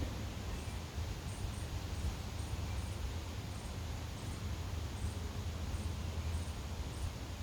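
Outdoor ambience: a steady low rumble with faint, short, very high-pitched chirps repeating irregularly about once or twice a second, like a small insect or animal calling.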